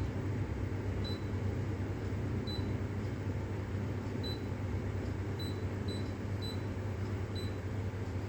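Short electronic beeps from a De'Longhi espresso machine's control panel, about seven at uneven intervals, as its buttons are pressed to page through the machine's usage statistics, over a steady low hum.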